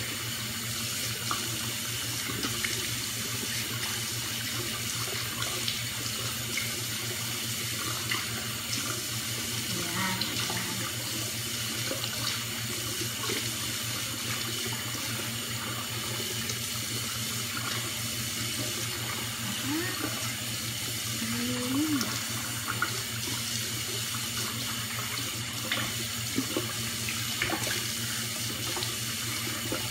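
Tap water running steadily while dried sugar scrub is rinsed off the skin.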